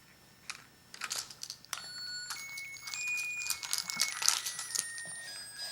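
Baby's toy remote control played as it is handled: clicks and plastic rattling, then from about a second and a half in a string of electronic beeps stepping between different high pitches.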